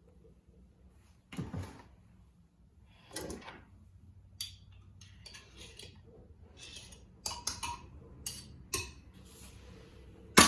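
Kitchen handling sounds: a spoon knocking and scraping against jars and dishes. There are a number of separate sharp clinks and knocks, with quieter scraping between them and a louder clatter right at the end.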